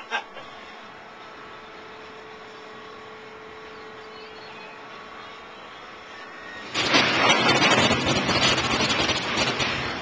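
Steady hum of coal-plant machinery with a faint steady whine, then, almost seven seconds in, a loud rushing rumble of coal pouring from the loadout chute into a railroad hopper car, easing off near the end.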